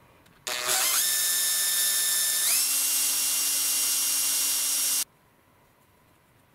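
Small electric drill spinning up with a steady whine, stepping up to a higher speed about halfway through and then stopping abruptly, while enlarging a hole in a plastic key fob case.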